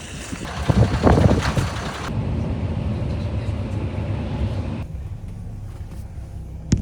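Strong gusting wind buffeting the microphone, a heavy low rumble that peaks about a second in and eases off after about five seconds. A single sharp click near the end.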